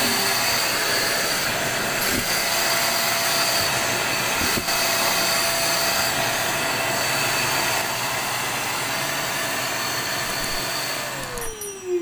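Geepas 2300 W drum vacuum cleaner running steadily at full power, pulling a cloth held to its suction inlet. Near the end it is switched off and the motor's whine falls in pitch as it spins down.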